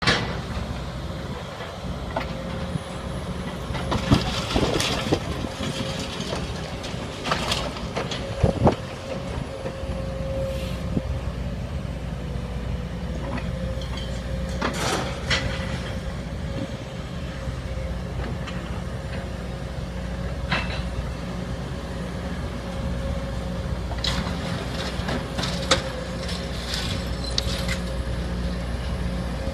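Diesel engines of Case and Komatsu tracked demolition excavators running steadily, with a constant whine above the engine drone. Sharp crashes and clatter of brick and masonry rubble come in clusters about four to nine seconds in, around fifteen and twenty seconds, and again near the end.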